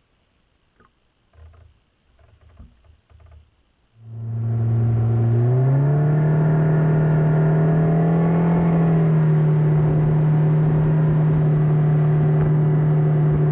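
A few faint clicks and knocks, then about four seconds in a boat's outboard motor comes in loud and runs, its pitch stepping up as the throttle opens and then holding steady under way, with wind and water noise.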